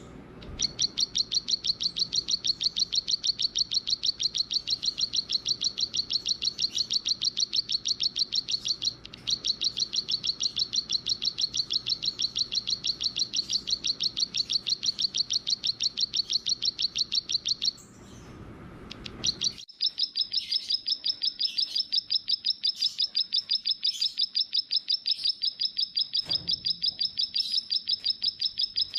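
A small songbird trilling: a fast, even run of high, sharp chips repeated many times a second, going on for about eighteen seconds. After a short break it starts again slightly higher in pitch.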